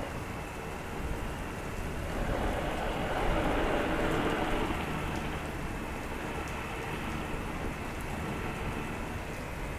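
Heavy rain falling steadily, with a rumble of thunder swelling about two seconds in and fading by the fifth second.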